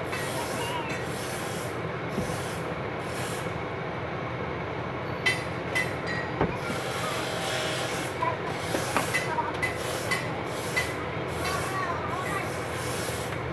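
Steady rushing background noise, with a string of short sharp clicks and knocks through the middle.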